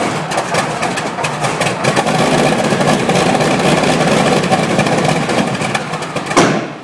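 Wright R-3350 eighteen-cylinder radial aircraft engine firing and running roughly on a start attempt that does not quite take, then dying away suddenly near the end.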